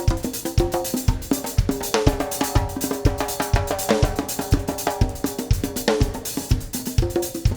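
Instrumental pop music with a steady drum-kit beat: kick drum, snare and hi-hat, under sustained instrument chords, with no singing.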